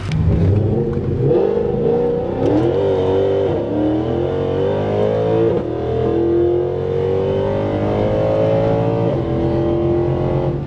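Mercedes C63 AMG's M156 6.2-litre V8 running and revving, its pitch climbing and dropping back several times; the engine is running smoothly with the misfire cured after new O2 sensors.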